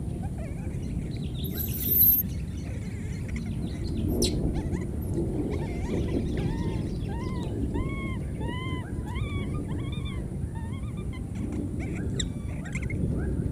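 Wet baby monkeys crying: a run of short rising-and-falling cries, about two a second, strongest through the middle stretch, over a steady low background noise.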